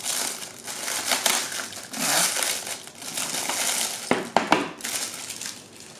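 Clear plastic wrapping film crinkling as it is pulled off a plastic storage case, with a few sharp clicks about four seconds in.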